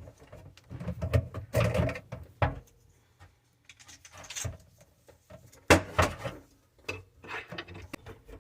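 Irregular knocks, clunks and scrapes of sink drain pipes being worked loose and handled as a drain line is disconnected, with a sharp knock a little over halfway through.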